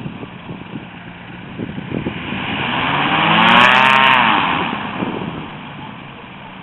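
HM-1000 Balerit ultralight flying past close by: its engine grows louder to a peak about three and a half seconds in, the pitch dropping as it passes, then fades away.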